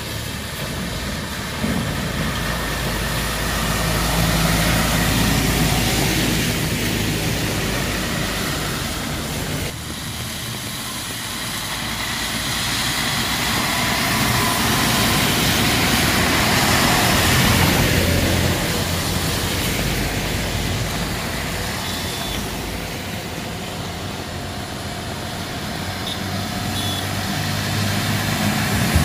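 Heavy diesel trucks passing one after another on a wet highway, their engines running and their tyres hissing through water on the road. The sound swells and fades as each goes by.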